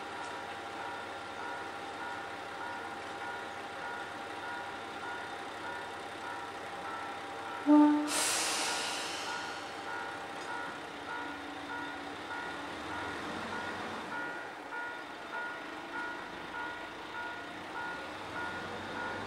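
KiHa 20-series diesel railcar with its engine idling, then a short horn toot about eight seconds in, followed at once by a loud hiss of air from the brakes releasing that fades over a couple of seconds. The engine then revs as the railcar pulls away, with the wheels clicking evenly over rail joints near the end. A repeating ding, typical of a level-crossing bell, sounds throughout.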